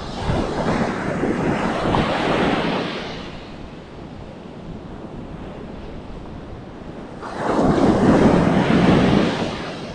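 Ocean surf breaking on a beach: one wave crashes in the first three seconds and another near the end, with a quieter wash of water between.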